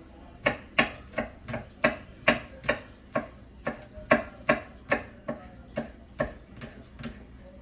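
Knife chopping food on a cutting board: a steady run of sharp strokes, about two and a half a second, starting about half a second in.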